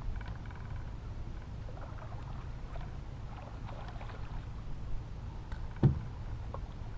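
Light splashing and lapping of water at the side of a bass boat as a hooked bass is brought alongside, over a low steady rumble. One sharp thump against the boat near the end.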